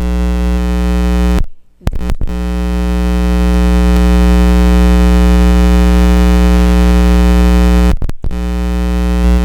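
A loud, steady electronic buzzing drone with many overtones, cutting out abruptly twice for a moment.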